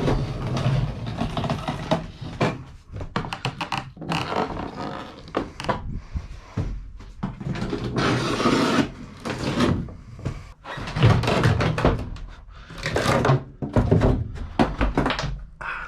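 Irregular knocks, scrapes and clatters of plywood lining panels being worked loose and handled against the van's metal body.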